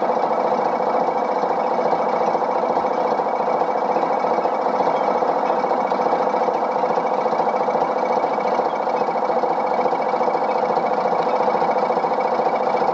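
Narrowboat's diesel engine running steadily at an even rate, a constant machine hum that does not change.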